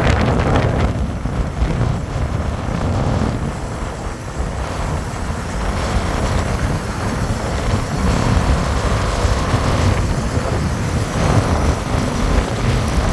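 Wind buffeting the microphone on a moving motorcycle, over a steady low rumble of engine and road noise.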